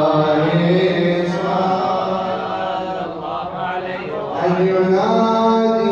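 Men chanting an unaccompanied Omani mawlid (a devotional poem on the Prophet's family), voices drawn out in long held, melismatic notes. The chant eases off about three seconds in, then swells again on a new, higher held note about a second later.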